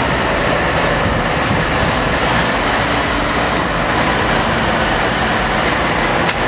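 Heavy machine running steadily under load: a loud, continuous engine-and-machinery noise, with a brief click near the end.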